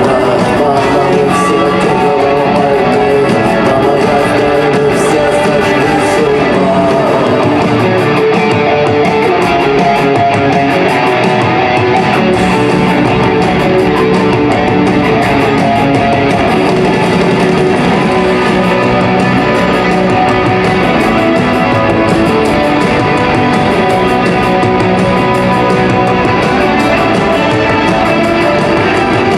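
Live rock band playing, electric guitars to the fore, loud and continuous.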